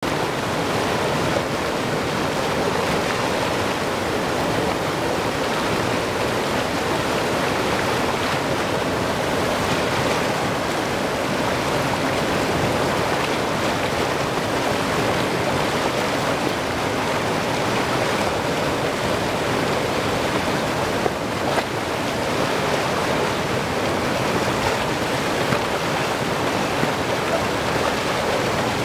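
Whitewater rapid on a mountain river, the water rushing and churning in a steady, loud roar.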